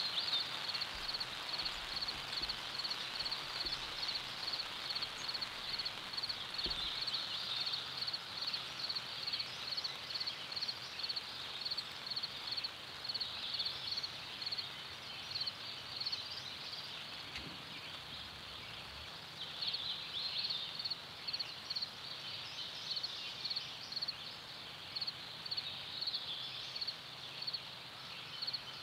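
Outdoor field ambience: a steady, high-pitched rhythmic chirping, about three pulses a second. Fainter high calls come and go over it.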